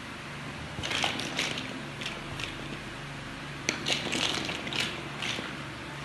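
Large plastic building blocks clicking and clattering as they are picked from a pile and pressed together, in two bunches of quick clicks, about a second in and again from about four seconds in. A steady low hum runs underneath.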